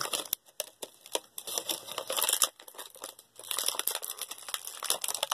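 Plastic packaging crinkling and tearing in the hands as a toy pack is opened, in irregular crackles, busiest about two seconds in.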